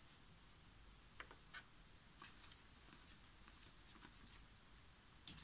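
Faint, irregular clicks and soft slides of playing cards being thumbed apart one by one in the hand, barely above room tone.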